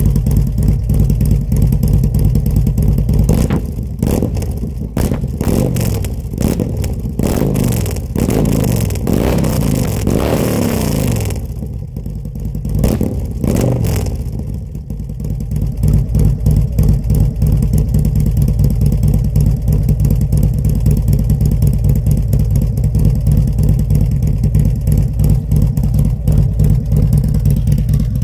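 A 2020 Harley-Davidson Road Glide Special's Milwaukee-Eight V-twin is heard through its aftermarket Sharkroad exhaust, close to the pipes. It idles, then is revved several times from about four seconds in, its pitch rising and falling. About fifteen seconds in it settles back to a steady idle.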